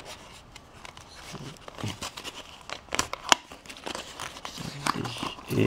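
Small cardboard puzzle box being opened by hand and its contents pulled out: the cardboard and wrapping rustle and crinkle, with scattered clicks and one sharper click about three seconds in.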